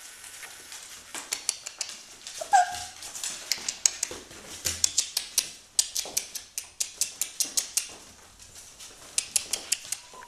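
An Australian Labradoodle puppy gives one short whimper about two and a half seconds in, among many sharp clicks and taps in quick runs.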